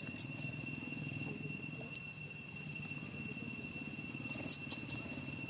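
Steady high-pitched drone of insects, several thin unchanging tones, over a low steady hum. Two quick runs of three short sharp clicks break in, one at the start and one about four and a half seconds in.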